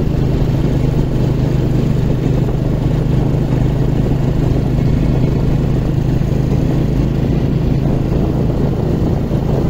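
Motorcycle engine running at a steady cruising speed while riding.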